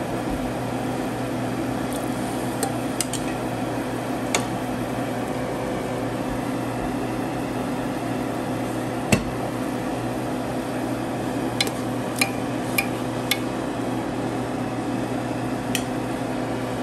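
A steady hum of a kitchen appliance motor runs throughout. About a dozen sharp, brief clicks are scattered over it, the loudest about nine seconds in, around an open aluminium pot of simmering broth on a gas stove.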